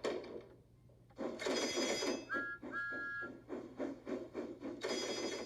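Steam engine sound effect: rhythmic chuffing with hissing steam, about three to four chuffs a second, and two short whistle toots midway, as the engine pulls away.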